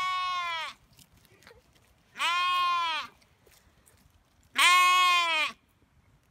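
A lamb bleating loudly: three drawn-out 'meh' calls about two seconds apart, the first already sounding at the start.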